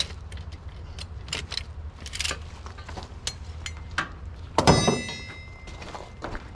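Ratchet strap being released: a series of sharp clicks and metal clatters. About two-thirds of the way through comes a loud metallic clang that rings on, with a steady low drone underneath.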